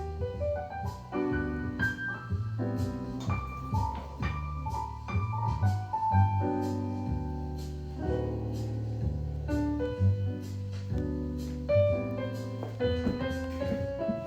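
Background jazz music led by piano, with a low bass line stepping under it and light percussion ticks.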